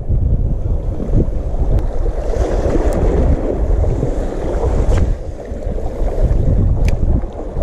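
Wind buffeting the microphone: a loud, uneven low rumble, with a few light clicks.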